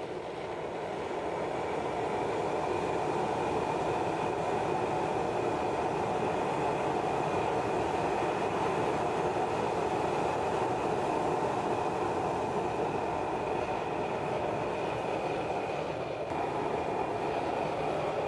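Homemade waste cooking oil and machine oil burner stove running under forced air from an electric fan: a steady rush of blown air and flame with a faint high whine. It builds up over the first two seconds and then holds steady.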